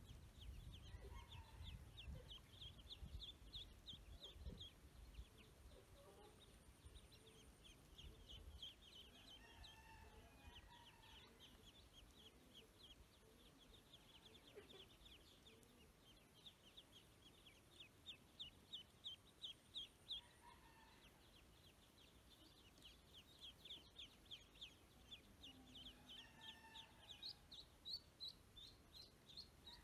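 A group of ducklings peeping continuously: faint, quick, high peeps several a second, with a few lower calls among them.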